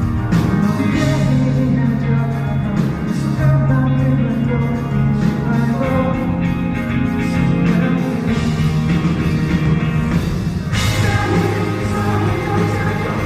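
Live band playing a rock-pop song with singing over sustained bass notes and drums. About eleven seconds in the band comes in fuller, with a cymbal crash.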